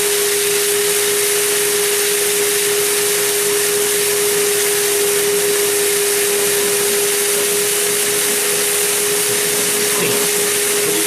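Wet/dry shop vac running steadily, sucking on a clogged sink drain through a cut-off pop-bottle top pressed over the drain hole. The sound is a steady motor hum under loud rushing air.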